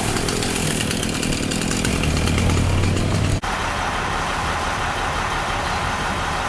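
Chainsaw running over a low engine drone. A little past halfway the sound cuts abruptly to a steadier, higher machine noise.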